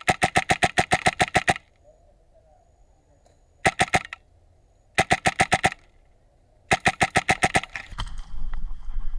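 HPA airsoft rifle firing on full auto in four bursts of rapid, even shots: a long burst of about two seconds, then three short ones. Some rustling handling noise follows near the end.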